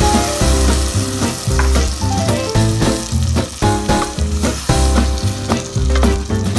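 Blended tomato sizzling as it hits hot oil and fried garlic in a steel pot and is stirred with a wooden spoon; the sizzle is strongest at the start and eases off. Background music with a steady bass beat plays throughout.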